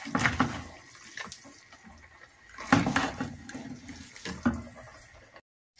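A cooking utensil stirring and tossing sauce-coated spaghetti in a nonstick frying pan: wet, squelching, scraping strokes at irregular intervals.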